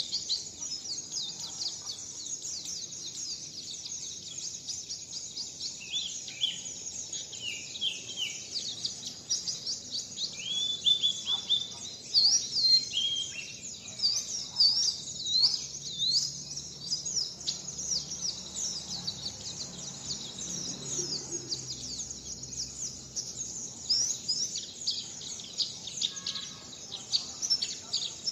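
Songbird singing a continuous, dense run of rapid high chirps and short whistled sweeps: the 'wit wit zipeer' song pattern that kicaumania keepers play to teach their birds.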